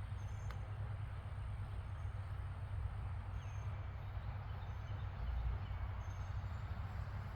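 Outdoor background noise: a steady low rumble, with a faint high chirp about every three seconds.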